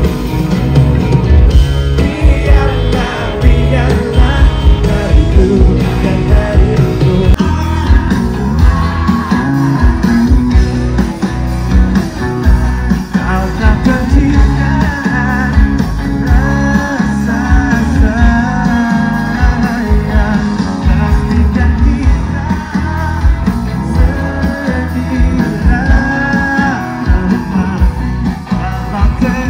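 Live rock band playing through a concert PA: electric guitar, heavy bass and drums under a male lead singer, loud throughout.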